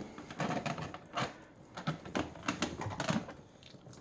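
Light, irregular clicks and knocks of plastic vacuum cleaner parts (hose, wand and power-nozzle fittings) being handled and fitted together.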